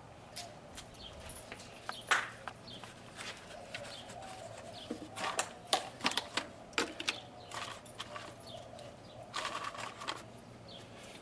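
Dry dog-food kibble tossed onto a concrete patio, the pieces clicking and clattering on the concrete in scattered clusters, thickest in the middle and again near the end.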